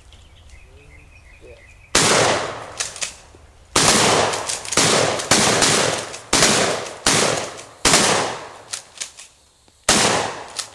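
A 12-gauge pump-action shotgun firing a string of loud shots, starting about two seconds in, at uneven intervals of roughly one to two seconds.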